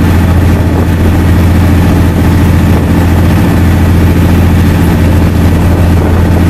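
A passenger boat's engine running steadily under way: a loud, even low drone, with the rush of wake and wind over it.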